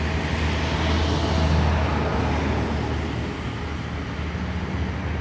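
Steady low engine hum under a rushing noise that swells to a peak about a second and a half in, then eases off.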